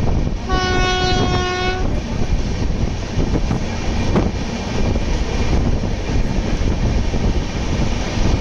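Passing express train rumbling and clattering on the rails, with one train horn blast lasting just over a second near the start.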